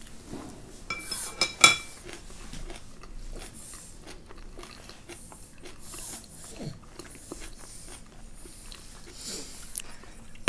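Close-up eating sounds: chewing and biting sweet potato with kimchi. About a second and a half in, a utensil strikes a dish twice with a short ringing clink.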